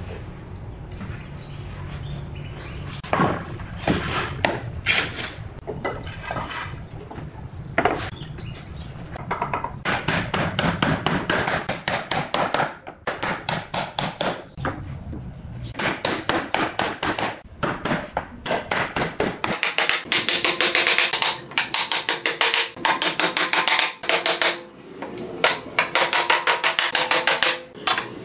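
Steel claw hammer striking the wooden boards of a pallet: scattered knocks at first, then runs of quick blows that grow denser over the last several seconds.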